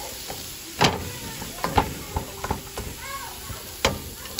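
Spatula stirring and scraping ground beef and frozen corn-and-bean mix in a stainless steel skillet: several sharp scrapes and knocks against the pan, loudest about a second in and near the end, over a faint sizzle.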